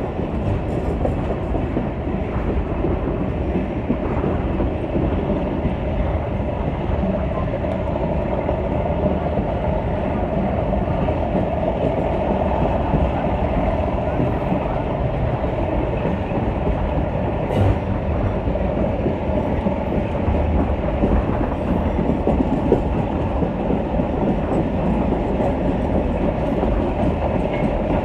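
Passenger train coaches running along the track at speed, heard from an open coach door: a steady noise of wheels on rails, with one sharp click about two-thirds of the way through.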